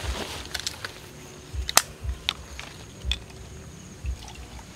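Plastic water bottle being handled and its cap twisted off: a few sharp plastic clicks and crackles, the loudest a little under two seconds in, with soft low bumps against the table.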